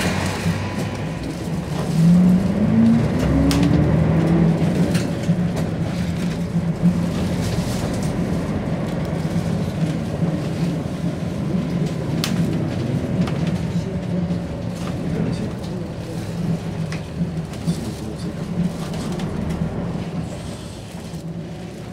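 Bus engine running steadily, heard from inside the passenger cabin as the bus moves slowly; about two seconds in the engine note rises as it accelerates, and a few sharp clicks and rattles come through.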